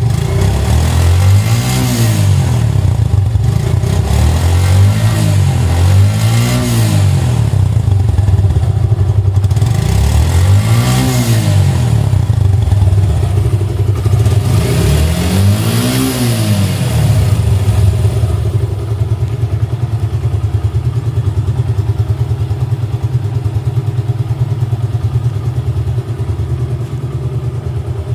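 Suzuki Gixxer motorcycle's single-cylinder engine running through its exhaust. It is revved with five short throttle blips that rise and drop back to idle over the first two-thirds, then idles steadily.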